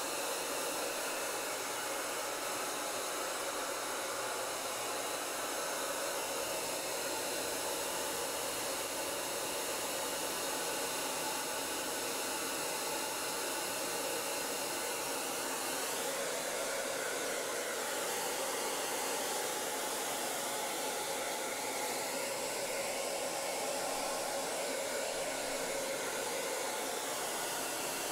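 Handheld electric hair dryer running steadily as it dries a wet dog's coat: a constant rushing hiss of air with a faint motor whine.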